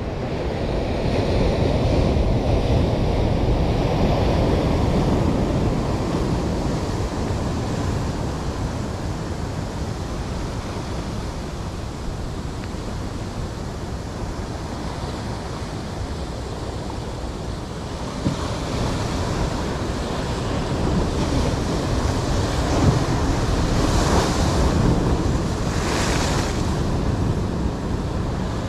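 Rough surf breaking and washing over shoreline rocks, a continuous rushing that swells louder twice, with wind buffeting the microphone.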